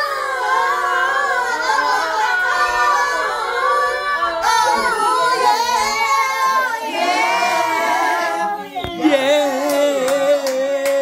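A group of women and children singing together, loud and a little ragged, ending on a long held note with hand claps over it near the end.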